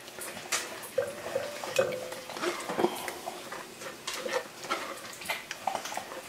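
A spoon scraping and clinking against a stainless-steel mesh strainer as thick sauce is pushed through the mesh, in irregular strokes with short metallic rings.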